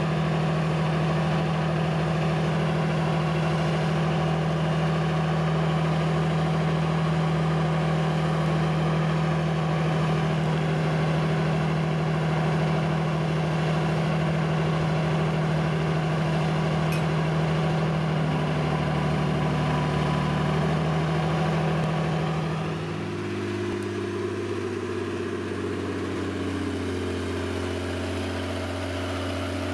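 Truck-mounted crane's engine running steadily at a raised speed, then dropping to a lower, steady pitch about 23 seconds in.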